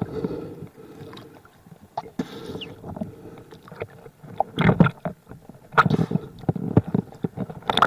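Water sloshing with irregular knocks and clicks, bunched in two clusters in the second half.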